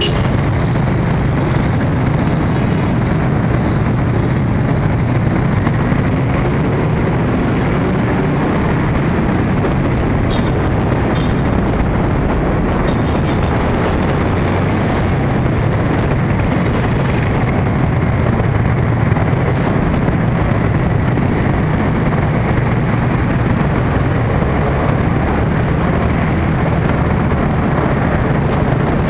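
Steady, loud rumble of wind on the microphone and road noise from a camera riding on a moving vehicle in street traffic.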